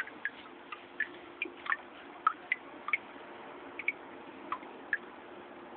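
Water drops plinking into a garden pond, about two irregular drips a second, over a faint steady hum.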